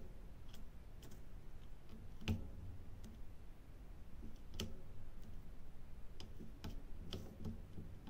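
Diamond painting drill pen tapping resin drills out of a plastic tray and onto the canvas: sparse, irregular light clicks, one sharper tap a little over two seconds in.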